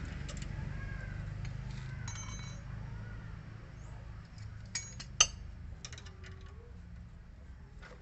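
Combination wrenches clinking against each other and the nut of a new stabilizer link on the strut as it is being fitted: a few scattered metallic clicks, the sharpest and loudest about five seconds in, over a steady low rumble.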